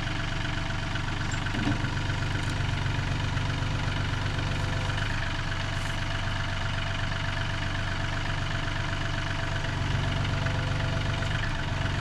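Tractor engine idling steadily, with an even hum that does not change.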